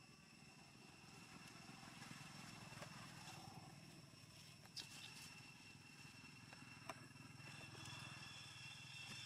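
Near silence: faint outdoor background with a low steady hum, a thin steady high tone and a few faint clicks.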